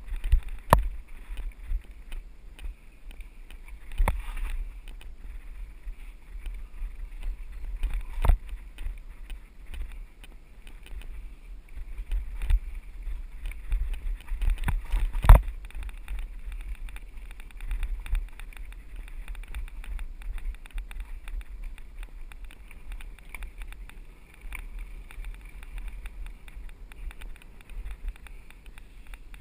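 Mountain bike rolling fast down a dirt singletrack: steady wind rumble on the microphone and tyre hiss, broken by sharp knocks and rattles as the bike hits rocks, the loudest about fifteen seconds in. The knocks thin out later as the trail turns smooth.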